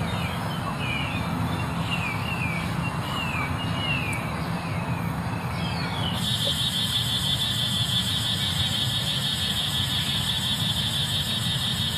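Outdoor ambience: birds chirping in short falling calls for the first half, then a steady high-pitched buzz that starts suddenly about six seconds in, all over a constant low rumble of distant traffic.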